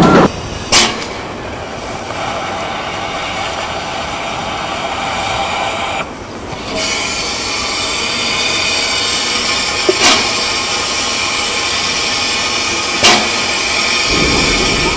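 Small steam tram locomotive hissing steam steadily, with three sharp knocks.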